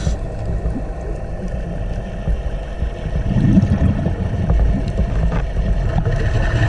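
Underwater ambience picked up by the camera: a steady low rumble and hiss, growing a little louder about halfway through.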